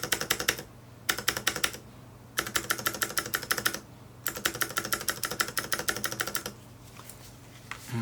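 Unlubricated Varmilo Pro Panda mechanical keyboard with clicky Cherry MX Blue switches being typed on in four quick bursts of rapid keystrokes, with short pauses between them.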